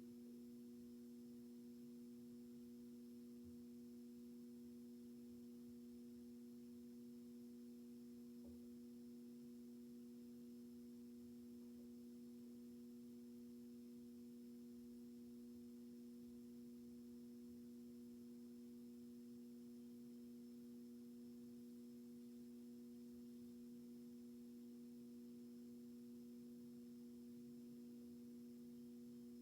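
Faint, steady low hum made of a few held tones, with no change in pitch or level.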